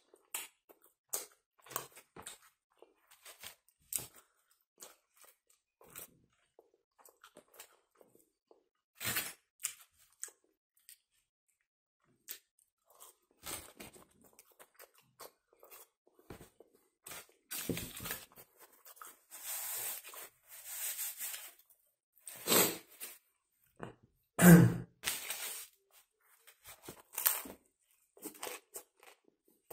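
Close-up eating sounds: a person chewing and biting into a kebab sandwich and fries, with scattered wet mouth clicks and crunches. A denser stretch of crunching sits about two-thirds through, and the loudest bite comes about three-quarters in.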